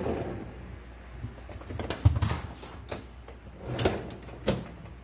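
A refrigerator door being lifted and fitted onto its hinges: a heavy thump about two seconds in, then a few sharp knocks and scrapes as it is worked into line.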